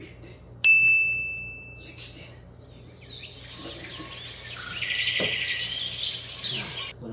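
A single bell-like ding a little over half a second in, ringing for about a second. Then, from about three seconds in, several seconds of birds chirping.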